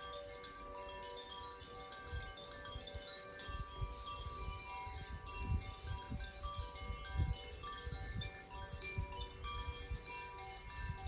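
Hand-rung tuned wind chimes: many ringing notes that overlap, sustain and blend into one another. From about two seconds in, irregular low rumbles sit underneath.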